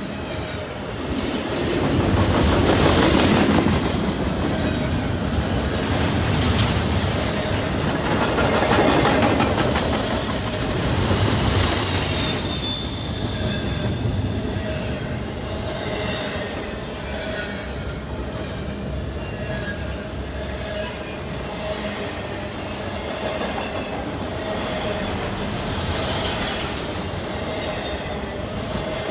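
Double-stack intermodal freight train's well cars rolling past close by, steel wheels clattering over the rails with a steady rumble. Louder for the first twelve seconds, with a high wheel squeal near ten to twelve seconds in.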